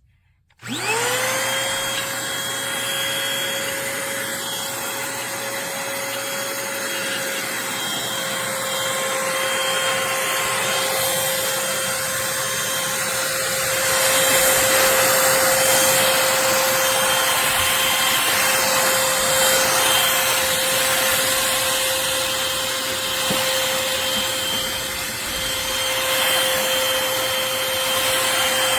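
Eureka Blaze cordless stick vacuum switched on: its motor spins up within a second to a steady high whine over a rush of air, then runs on. The air noise grows louder about halfway through.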